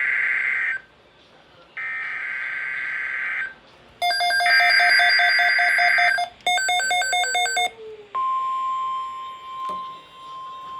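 NOAA Weather Radio Emergency Alert System header: three buzzy digital data bursts, each under two seconds, announce a new alert. A receiver's sharp electronic beeping overlaps the third burst. About eight seconds in, the steady single-pitch 1050 Hz weather radio warning alarm tone starts.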